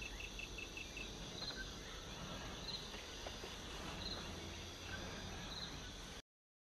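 Forest ambience with insects calling over a steady low background noise. A quick run of high chirps, about eight a second, stops about a second in, and a short high call repeats roughly every second and a quarter. The sound cuts off suddenly about six seconds in.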